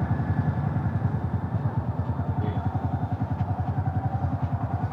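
Motorcycle engine idling, with an even putt-putt of about nine beats a second.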